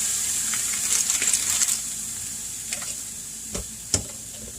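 Frozen cauliflower rice with mixed vegetables sizzling in a hot pan just after being tipped in, the hiss crackling and slowly dying down, with a couple of sharp knocks near the end.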